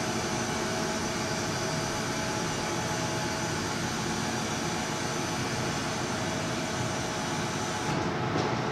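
Car stacker parking lift running as its platform lowers a car: a steady mechanical hum with a faint whine. The high hiss drops away about eight seconds in.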